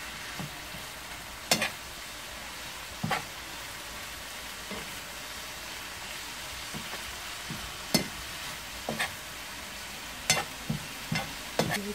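Dried anchovies and peppers sizzling steadily in a frying pan while being stir-fried with a plastic spatula, with short knocks of the spatula against the pan every second or two.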